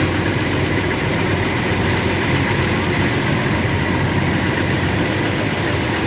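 An old combine harvester's diesel engine idling steadily, a loud even running sound with a fine regular pulse.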